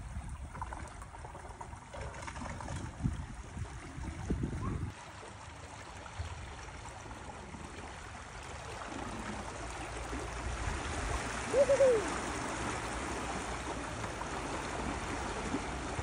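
Water rushing and lapping as a pontoon raft runs along under a small electric outboard, the wash growing stronger in the second half. Low uneven rumbling in the first few seconds, and one short rising-then-falling tone, the loudest sound, about twelve seconds in.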